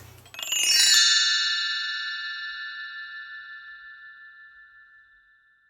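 A single struck chime rings out about a third of a second in and fades away slowly over about five seconds, wavering slightly as it dies. The low room noise drops out completely just after it is struck.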